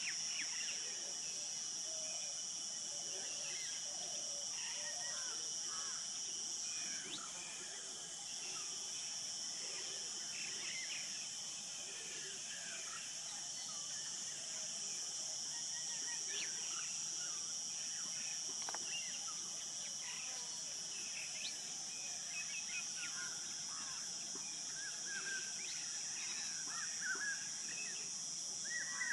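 Forest ambience: a steady high-pitched insect drone with many short bird chirps and calls scattered through it. The drone breaks off briefly about seven seconds in.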